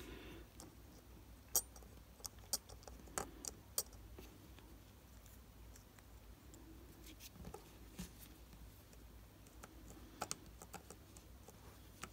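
Faint, scattered light clicks and taps of fingers handling a small digital watch module and its parts, with a cluster of them about two to four seconds in, over a low steady hum.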